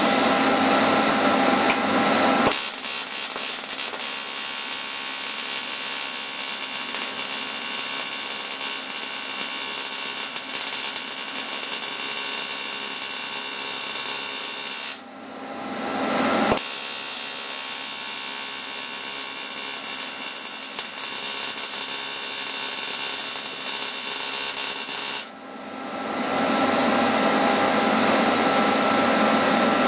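TIG welding arc buzzing and hissing steadily as a steel bracket is brazed with bronze filler rod. The arc runs in two long stretches, stopping briefly about halfway. It is off for the first couple of seconds and again near the end, when a lower steady hum is left.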